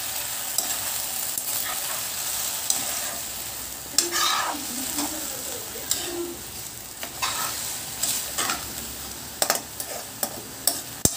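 Macaroni and chopped vegetables sizzling in hot oil in a kadhai while a metal spatula stirs them, with a steady hiss and scattered scrapes and clicks of the spatula against the pan, more frequent near the end.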